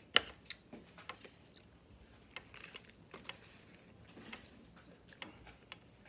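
Close-miked chewing of a mouthful of Italian beef sandwich, a run of short wet smacks and clicks with a sharp click just after the start.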